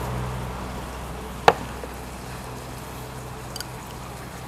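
Eating at a shabu hotpot: one sharp knock of a utensil on tableware about a second and a half in, then a couple of faint clicks, over a steady low hum.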